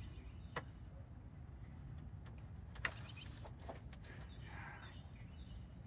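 A low, steady background rumble with a few faint, sharp clicks of small parts being handled under the hood.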